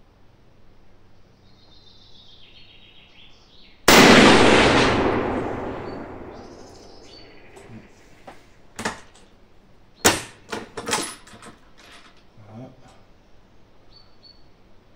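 One shot from a Mauser bolt-action rifle in .300 Savage: a sharp crack about four seconds in with a long echoing tail under the range's roof. A few seconds later a short series of metallic clicks as the bolt is worked.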